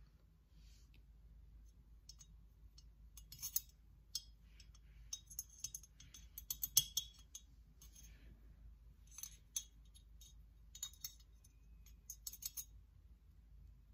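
Thin paintbrush dabbing and tapping on a hard ceramic dragon figure: faint, scattered small clicks and ticks in short clusters, with soft brush scrapes between them.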